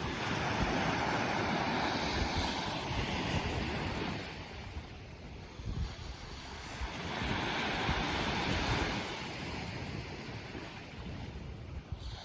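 Sea waves washing ashore in two swells, a long surge at the start and another past the middle, each rising and fading back. Wind buffets the microphone in low thumps.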